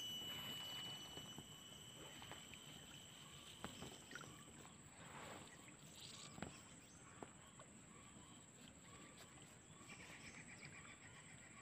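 Near silence: faint outdoor ambience with a thin, steady high tone and a few soft ticks.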